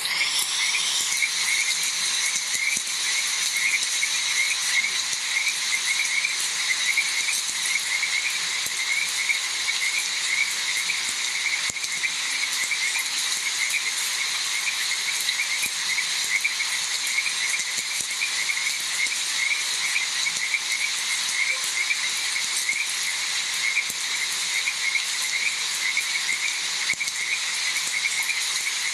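Frogs croaking in a steady chorus, a rapid train of short repeated calls, over an even hiss of rain.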